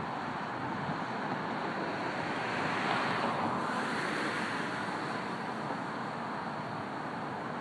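Road traffic: a steady hiss of car tyres on the road, swelling as one car passes about halfway through.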